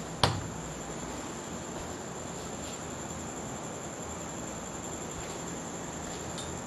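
Quiet room tone: a steady hiss with a thin, continuous high-pitched tone. A single sharp click comes about a quarter of a second in.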